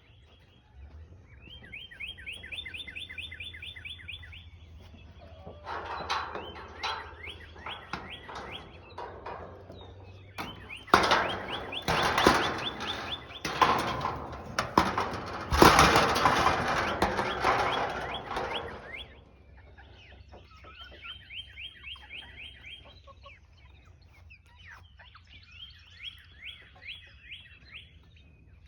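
Birds calling in fast runs of repeated chirps. In the middle a louder, noisier stretch of rapid clicking chatter takes over, then the chirp runs return.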